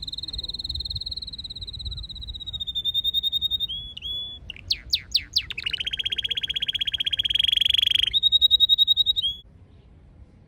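Red canary singing a song of rolled trills: a long high trill, then a few sharp downward-sweeping notes about halfway through, then a fast, lower, buzzing trill and a brief high trill before it stops near the end.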